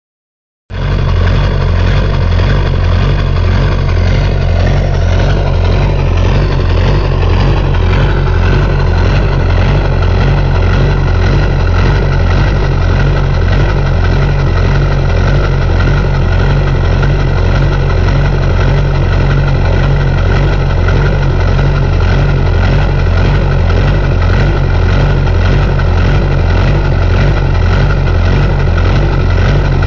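LB7 Duramax 6.6 L V8 turbodiesel idling at the tailpipe with an even, rhythmic lope. The lope comes from a cold engine running 40% over-size injectors on an old Banks tune that is not set up for them.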